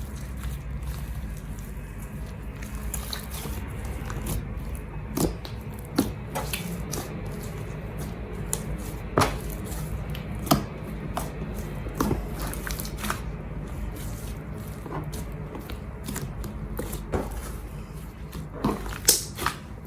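Slime being squished and stretched by hand, giving irregular wet clicks and sticky pops, a few of them sharper and louder, over a steady low hum.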